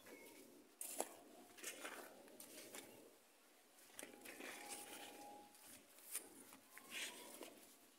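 Faint, irregular rustling and crunching, as of leaves brushing and feet stepping on dry soil while moving through eggplant plants. A short steady tone sounds about halfway through.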